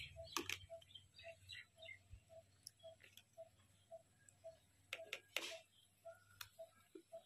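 Faint, evenly repeated bird call: one short note at a steady pitch, about two a second. About five seconds in come a few crisp crunches of bites into raw guava.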